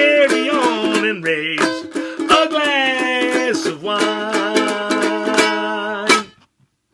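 A voice singing a song's closing line with held notes over strummed, plucked-string accompaniment. The music ends with a last strum about six seconds in.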